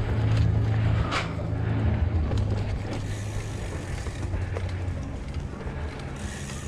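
Mountain bike on a trail: tyres rolling and the bike rattling, with a few short knocks. A low steady hum is loudest in the first few seconds and then fades.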